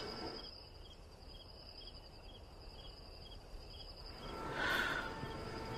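Crickets chirping: a steady high trill with a second chirp repeating about twice a second. A brief, louder hiss comes about four and a half seconds in.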